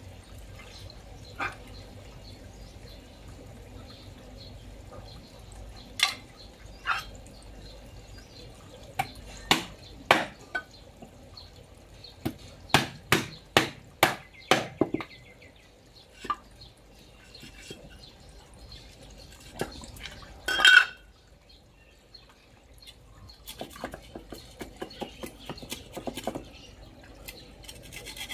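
Knife and hammer cutting a large fish on a wooden chopping board: scattered single knocks, then a quick run of about seven knocks around the middle as the hammer drives the knife blade through the fish, and a loud knock with a short metallic ring later on. Softer knife scraping and cutting near the end.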